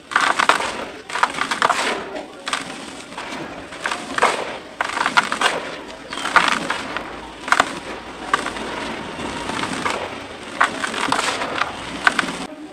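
Dry, powdery red dirt squeezed and crumbled by hand, pouring back down into a plastic tub: a run of gritty rustles and pours, one every second or so.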